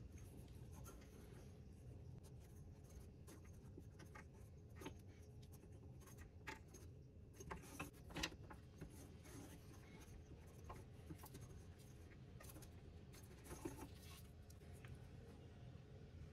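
Near silence with faint handling noises: light rubbing and small clicks of a wood-and-epoxy pen barrel and its brass kit parts being handled and fitted, with the sharpest clicks about halfway through and again near the end.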